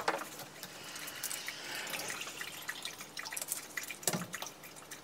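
Water poured from a plastic bottle into a drinking glass, splashing for the first few seconds amid small clicks of bottle and glass, with one dull knock about four seconds in.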